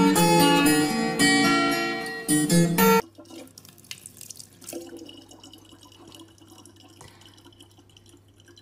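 Strummed acoustic guitar music, which cuts off abruptly about three seconds in. After that comes a faint, thin stream of water running from a kitchen tap into a plastic bottle.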